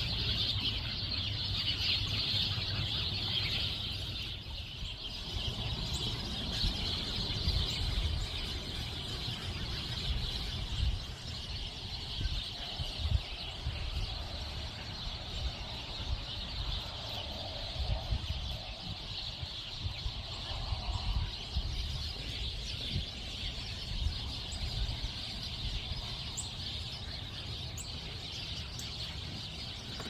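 Wild birds calling and chattering in woodland: a dense, high-pitched chorus that is strongest in the first few seconds and then thins, with a few lower calls now and then and a low rumble underneath.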